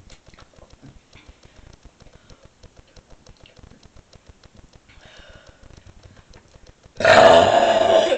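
Faint clicking, then about seven seconds in a woman's long, loud burp.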